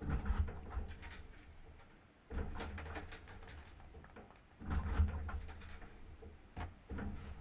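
Washing machine running, with a low rumbling surge and sloshing clatter about every two and a half seconds, typical of an agitating wash cycle.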